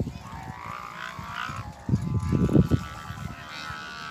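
Bamboo hummers on sawangan kites droning overhead, their pitch wavering and gliding, then holding steadier in the second half. Low gusts of wind hit the microphone about two seconds in.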